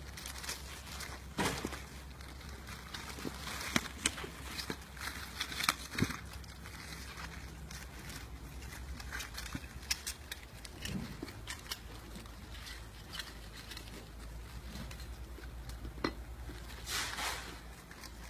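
Clear plastic bags crinkling and rustling as they are handled and opened, with irregular small clicks and knocks of the metal button badge parts inside. A louder stretch of rustling comes near the end.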